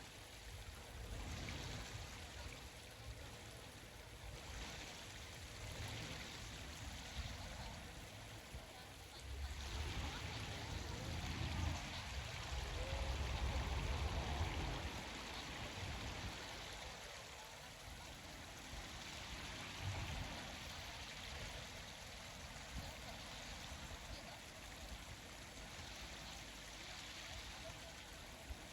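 Steady rush of running water at a lake. A louder low rumble rises for a few seconds around the middle.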